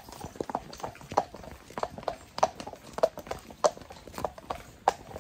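A horse's hooves clip-clopping on a wet tarmac lane as it is led downhill at a walk: a steady rhythm of sharp knocks, about three a second.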